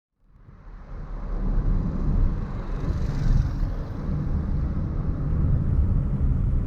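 An engine running steadily underway: a low, even rumble that fades in about half a second in.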